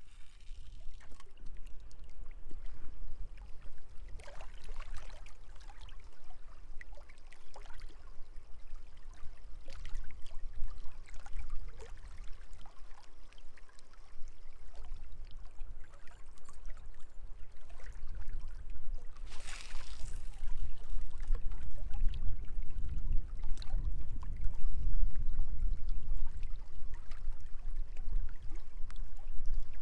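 Small waves lapping against a rocky lakeshore, with wind rumbling on the microphone that grows stronger in the second half.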